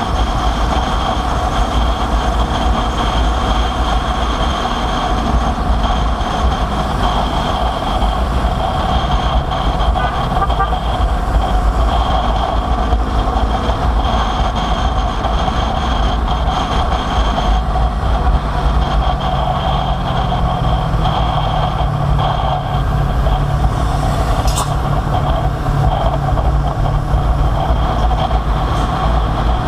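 Motorcycle engine running at road speed under heavy wind rumble on the microphone, a steady drone with no letup. About eighteen seconds in, a deeper engine note joins.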